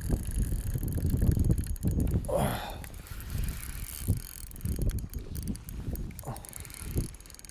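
Spinning reel's drag clicking as a freshly hooked fish pulls line off, with wind buffeting the microphone, loudest in the first two seconds.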